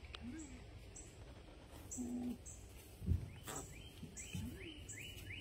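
Llama humming in short, soft hums that rise and fall in pitch, several times over. Birds chirp repeatedly in the background, and there is one low thump about three seconds in.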